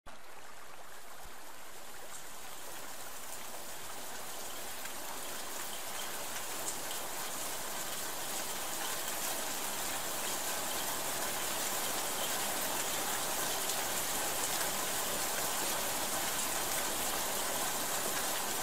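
Steady rushing and trickling of aquarium water, slowly growing a little louder.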